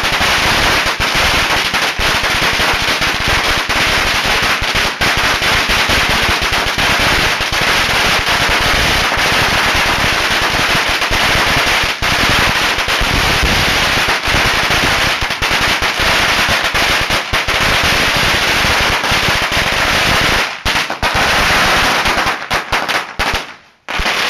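Firecrackers going off in a loud, rapid, unbroken crackle of bangs that breaks up into separate bangs near the end and then stops.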